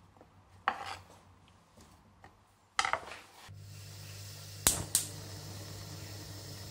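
A knife chops through a potato on a wooden chopping board, then a gas hob burner is turned on: a clatter, gas starting to hiss, two sharp igniter clicks, and the lit burner then burns with a steady hiss and low hum.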